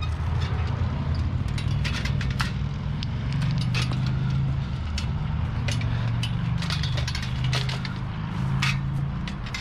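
A vehicle engine running steadily with a low hum, with scattered clicks and rattles over it.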